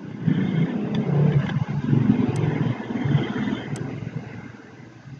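A motor vehicle's engine passing by, swelling up and then fading away. Two small mouse clicks fall about a second and a half apart near the middle.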